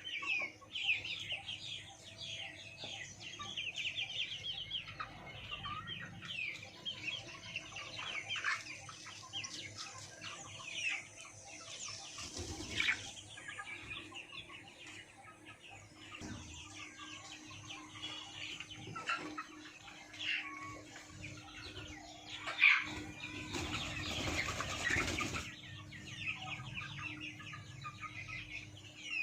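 A flock of five-week-old Sonali chickens peeping and clucking with many short, quick calls throughout. There are bursts of wing flapping about twelve seconds in and again about three quarters of the way through.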